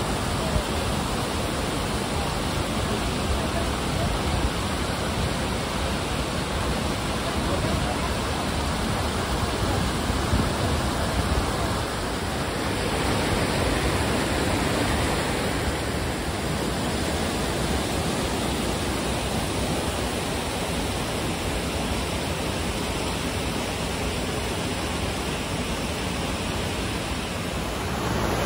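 White water rushing over a river weir and rocky falls: a steady, even rush of falling water.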